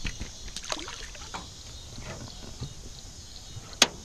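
Small clicks and rustles of a crappie being unhooked and clipped onto a fish stringer at the side of a jon boat, with one sharp knock near the end.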